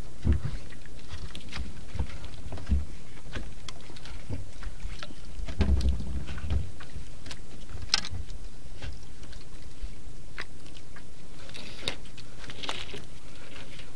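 Handline fishing line being hauled in hand over hand on a wooden outrigger boat: scattered small clicks and rubbing, with a few soft knocks against the hull, over a steady low background of boat and sea noise.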